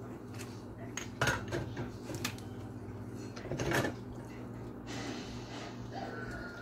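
A plastic slotted spatula stirring thick tomato sauce in a skillet, scraping and knocking against the pan a few times, the loudest knocks about a second in and just before four seconds.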